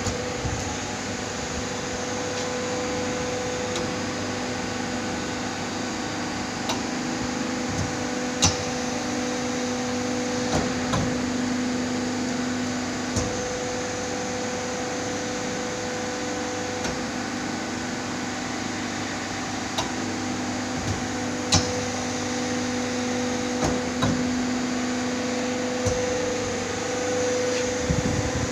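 RGPX 3160 hydraulic press brake running, its hydraulic pump motor giving a steady hum that swells and eases a little. A few sharp clicks and knocks from the machine are scattered through it.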